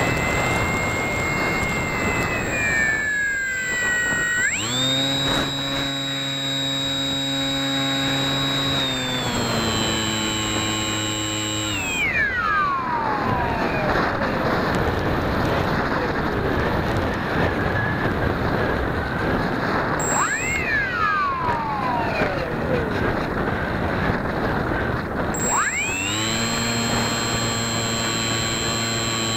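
Bixler 2 RC plane's electric motor and propeller whining as the throttle changes. The pitch sags, then jumps to a steady high whine for several seconds. It glides down as the throttle is cut, leaving a rushing wind noise, with one brief blip up and down. Near the end it rises again to a steady high whine.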